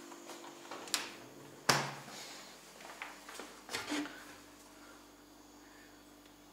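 Kitchen doors being handled: a refrigerator door shuts with a sharp thud a little under two seconds in, then a few lighter clicks and knocks between three and four seconds in as a wall cabinet door is swung open. A faint steady hum runs underneath.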